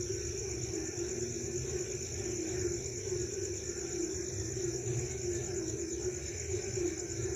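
Night chorus of frogs and crickets: a steady high insect trill runs over a dense, continuous low croaking of many frogs, with a low rumble underneath.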